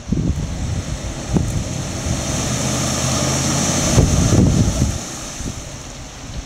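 Dodge pickup engine working under load as the truck pushes through deep mud and standing water, with the splash and hiss of the tyres in the wet. The revs build from about two seconds in, peak near four seconds, then ease off.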